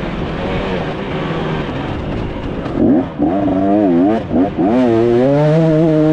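KTM 250 SX two-stroke motocross engine under a rider: running rough and off the throttle for the first few seconds, then blipped through a few quick revs, then held steady at high revs from about five seconds in.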